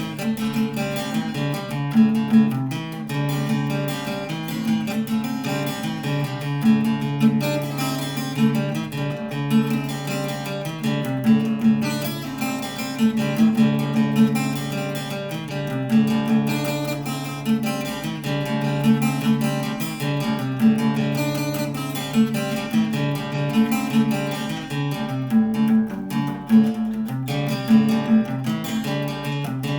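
Instrumental music led by guitar, plucked and strummed in a steady rhythm.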